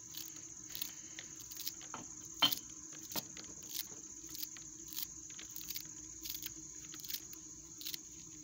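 Kitchen knife slicing fresh coriander held in the hand, cutting against the thumb with no board: a steady run of soft, crisp cuts, about two to three a second, one louder than the rest about two and a half seconds in.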